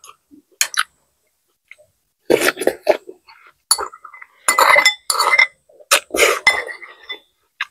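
Dishes and utensils clinking at a meal, in several short clusters of sharp clinks and clatter after a quiet first two seconds.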